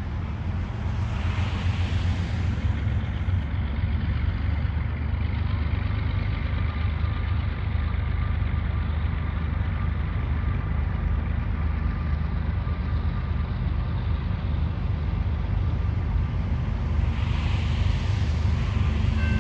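Steady low engine rumble, with a broader rush swelling up about two seconds in and again near the end. A crossing bell starts ringing right at the end.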